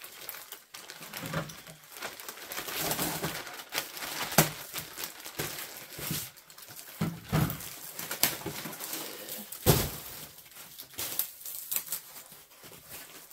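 Plastic bags and a brown paper package being handled and opened, with rustling and crinkling and a few sharp knocks.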